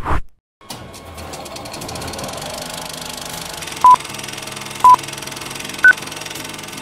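Film countdown leader sound effect: a film projector's steady, rapid clatter, with three short beeps about a second apart from about four seconds in, the third higher in pitch.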